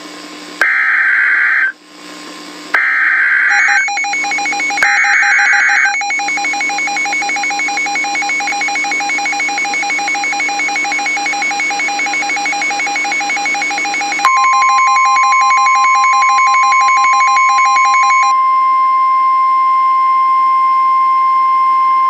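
Emergency Alert System tones: three short bursts of SAME digital header data, then a fast pulsing alert tone for about eight seconds, then a steady single-pitch alert tone held from about fourteen seconds in.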